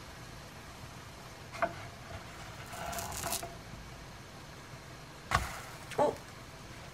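A wooden spatula clicks against a ceramic nonstick frying pan, then scrapes under a banana pancake. The pancake is flipped and lands with a sharp knock, followed by a ringing tap of the spatula on the pan, over a steady low hum.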